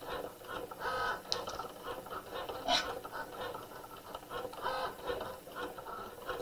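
Cricut Joy cutting machine running with its foil transfer tip, its motors moving the tool and mat to press foil onto a tag: a string of short whirring motor tones that start, stop and change pitch as it moves.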